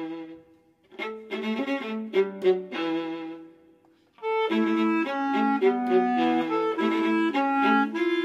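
Music: a violin playing a melody in short phrases, with two brief pauses, becoming fuller and continuous from about four seconds in.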